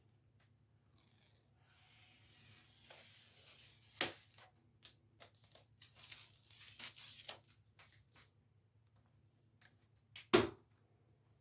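Backing being peeled off the adhesive mounting strip of plastic cable trunking: a rasping tear with small clicks for several seconds. A single sharp knock follows near the end.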